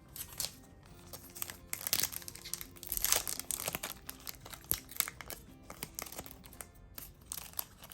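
Foil booster-pack wrapper crinkling and tearing as a trading-card pack is opened, the crackling loudest in the middle, over background music.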